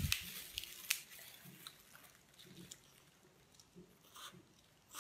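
Close-up chewing and biting of boiled lobster meat. A few sharp clicks and crackles come in the first second, then faint, scattered chewing noises.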